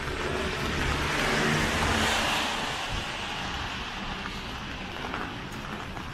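A car driving past: its tyre and engine noise swells to a peak about two seconds in and then fades away, over a steady low rumble of street traffic.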